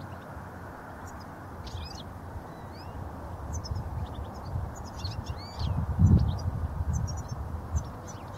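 European goldfinches calling: many short, high chirps and quick twittering sweeps scattered throughout. Wind rumbles on the microphone, with a strong gust about six seconds in.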